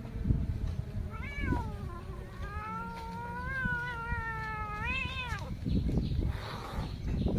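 Domestic cat meowing: a short meow about a second in, then a long drawn-out meow lasting about three seconds that rises and falls at its end.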